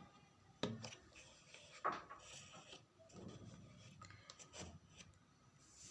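Faint kitchen handling sounds as oil goes into a kadhai: a sharp knock about half a second in and another near two seconds, with soft rubbing and scraping between.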